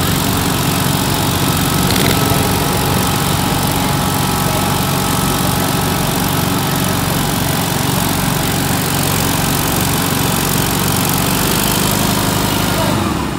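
Garden pulling tractor's engine running at full throttle under heavy load as it drags a weight-transfer sled, steady and loud, then dropping away near the end.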